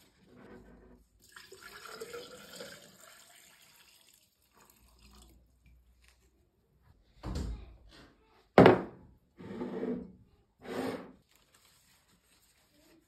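Water running for a couple of seconds, then several short knocks and clatters, one sharp knock louder than the rest.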